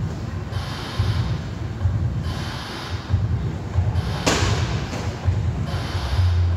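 Heavy, hard breathing of a person exerting close to the microphone, one loud breath about every two seconds over a low pulsing. One sharp thud a little over four seconds in.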